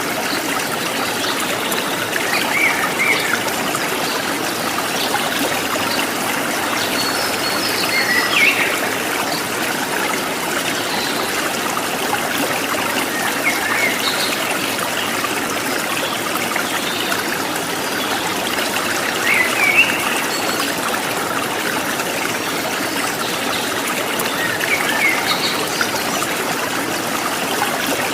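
A small stream of running water trickling steadily, with short bird chirps every few seconds over it.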